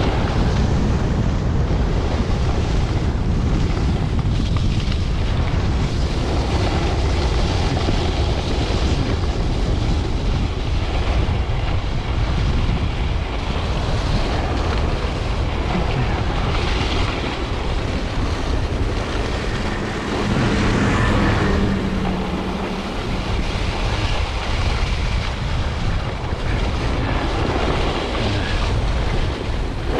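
Wind buffeting the microphone of a camera carried downhill at speed, over the steady hiss of a board or skis sliding on groomed snow.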